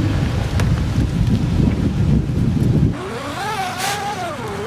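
Truck engine running under load, a dense low rumble. About three seconds in it cuts off abruptly to a pitched whine that rises, holds and falls.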